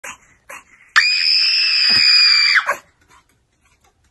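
A small poodle lets out one long, high-pitched scream about a second in, holding one steady pitch for about a second and a half before cutting off. It follows two short sounds near the start.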